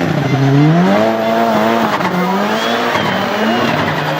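Tuned turbocharged Nissan 200SX engine revving up and down under load. Its pitch climbs about a second in, holds, then dips and rises again.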